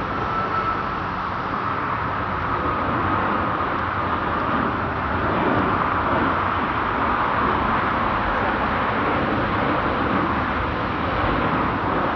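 Jet airliner engines at departure thrust: a steady, broad rushing noise with a faint whine near the start.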